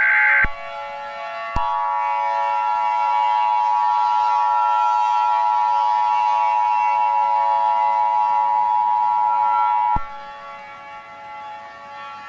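Emergency Alert System broadcast tones: the tail of a SAME header data burst, then the EAS two-tone attention signal, a steady high dual tone held for about eight seconds that cuts off sharply. A fainter steady hum of tones carries on underneath and after it.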